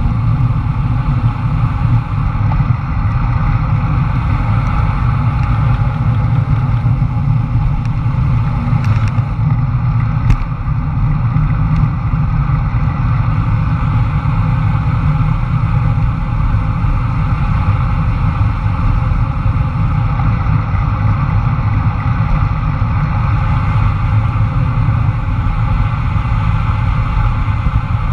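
Steady wind rush buffeting a bike-mounted camera's microphone during a fast road-bike descent, mixed with rolling road noise.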